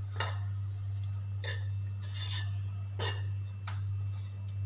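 Steel spoon scraping and tapping against a non-stick frying pan as crumbled khoya is stirred and pressed while it roasts, about five short strokes roughly a second apart, over a steady low hum.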